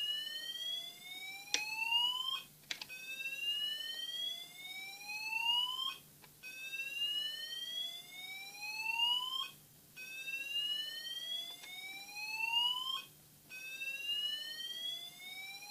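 Fire alarm sounder on its slow whoop tone: a rising sweep lasting about three seconds, then a short break, repeated over and over.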